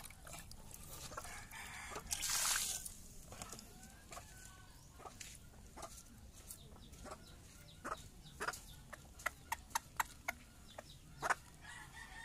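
Chickens clucking faintly in the background. A brief splash of water about two seconds in, and later a cat chewing fish scraps, with a run of sharp crunching clicks.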